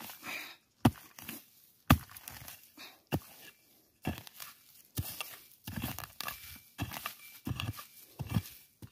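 A hand digging tool stabbing and scraping into soil to dig out a metal detector target. A few separate strikes come in the first half, then a quicker run of scrapes and chops. Short, faint high beeps from a pinpointer come a few times near the end.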